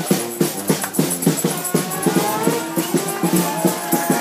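Brass band playing a second-line parade tune: drums keep a steady, driving beat under low horn notes that step up and down, with higher horn lines above.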